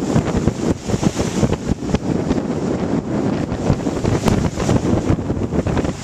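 Wind buffeting the microphone in heavy gusts, over small waves breaking on the Lake Michigan shore.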